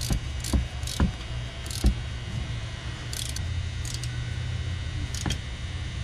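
Metal clicks and knocks from hand-fitting a serpentine belt tensioner assembly, with several sharp knocks in the first two seconds and short bursts of ratchet clicking, over a steady low hum.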